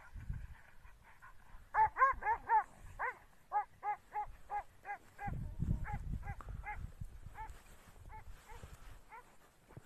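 A dog barking in a fast run of short, high barks, several a second, that thin out toward the end. A low rumble rises under the barks about halfway through.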